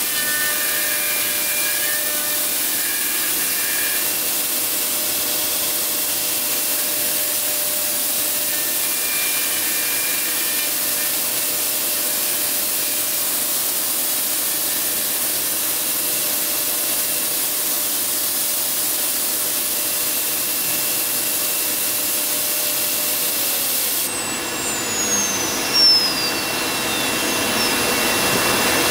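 Woodworking CNC router with its spindle running while routing a solid-wood door panel: a steady hiss with a high whine. About 24 seconds in the hiss drops and a whine falls in pitch over a couple of seconds, and then the machine noise grows louder again.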